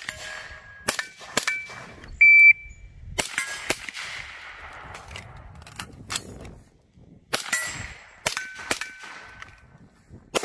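A shot timer beeps once about two seconds in, among 300 Blackout rifle shots from steel-cased Barnaul ammunition. The shots come in quick pairs, and several are followed by the short ring of a hit steel target.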